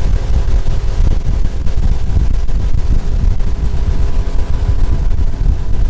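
Wind buffeting the microphone on a moving pontoon boat, a loud gusty low rumble over the outboard motor running underneath.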